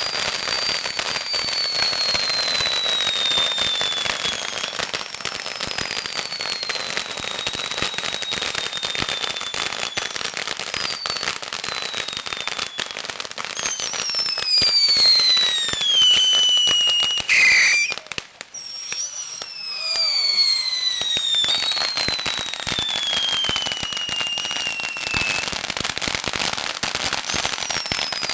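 Fireworks going off in rapid succession: a dense, continuous crackle with whistles that slide down in pitch, one every few seconds. The crackle drops away briefly about two-thirds of the way through, then resumes.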